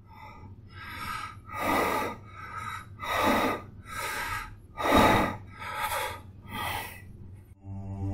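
A man breathing hard in short, audible breaths, about nine in a row; the loudest comes about five seconds in.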